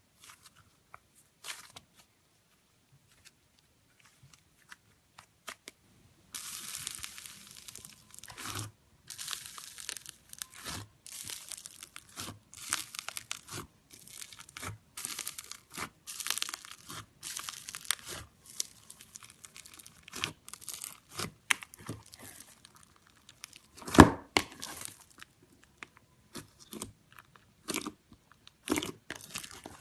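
Slime being squeezed and stretched by hand, making crackling, crunchy popping sounds. A few scattered clicks give way to repeated crackling bursts about a second apart, with one loudest sharp pop about three quarters of the way through.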